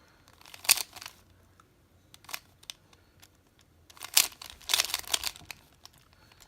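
3x3 Rubik's Cube being turned by hand: its plastic layers click and scrape in a few short bursts of quick turns, the longest cluster about two-thirds of the way in.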